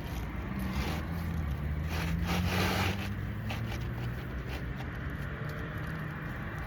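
A motor vehicle's engine hum swelling and passing, loudest about two to three seconds in, over steady outdoor background noise.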